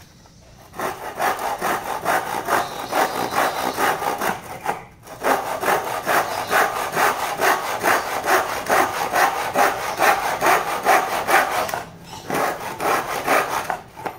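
Tekiro three-edge (triple-ground tooth) hand saw cutting through a wooden batten in quick, even push-pull strokes, about four a second. The strokes stop briefly twice and start again, a saw that keeps catching in the cut.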